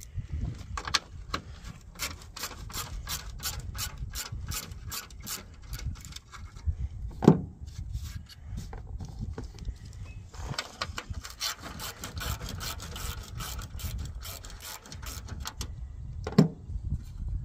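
Ratchet wrench clicking in quick, even runs as fasteners are worked out of the plastic grille frame, with a louder knock about seven seconds in and another near the end.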